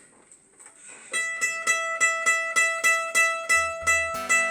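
Mandolin picking a repeated single note in a steady rhythm, about three notes a second, starting about a second in. Near the end a fuller strummed chord with lower notes sounds among the picked notes.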